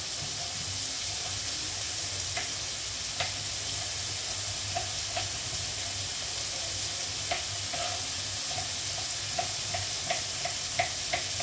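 Oil sizzling steadily in a frying pan of carrots, with scattered short knocks of a knife cutting green beans on a cutting board, coming more often in the second half. A low steady hum runs underneath.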